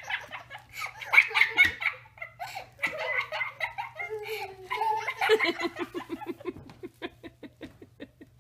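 Person laughing and giggling in bursts, breaking into a run of quick ha-ha pulses about five seconds in that fades near the end.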